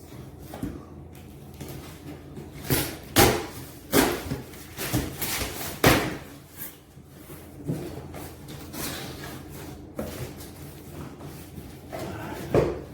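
Cardboard packaging being handled while a lawn mower kit is unpacked: rustling and scraping with several sharp thumps and knocks as parts are pulled from the box, the loudest about three, four and six seconds in and again near the end.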